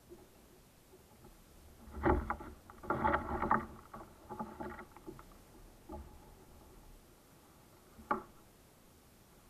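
Knocking and rattling of gear being handled against a plastic sit-on-top kayak: a cluster of knocks and rattles about two to five seconds in, then one more single knock near the end.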